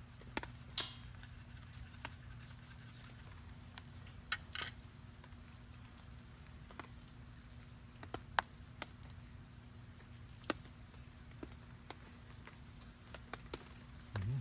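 Scattered raindrops tapping irregularly, single sharp ticks every second or so, over a low steady hum.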